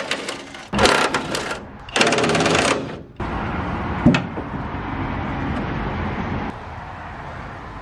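Cordless 1/2-inch impact driver (Topshak TS-PW1) hammering in three short rattling bursts in the first three seconds, as bolts are driven on the chipper. After that comes a steadier noise with a single sharp knock about four seconds in, and the noise drops in level near the end.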